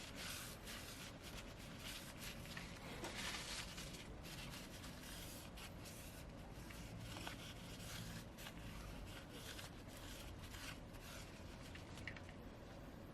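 Tissue rubbing and dabbing inside an opened phone's empty battery bay, wiping up leftover alcohol: a faint, uneven scratchy rustle with small taps.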